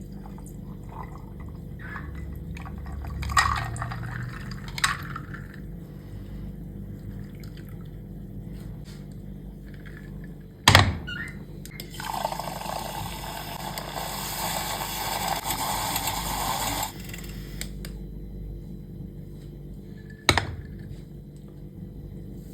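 Liquid pouring steadily into a glass for about five seconds, about halfway through. Glassware or a cup knocks sharply against a hard surface a few times, the loudest about two thirds of the way before the pour.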